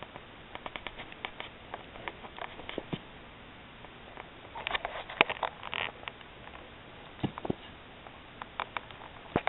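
Border collie's claws tapping and scraping on concrete pavers as it paws at a bug: irregular clicks, with a busy flurry a little past the middle.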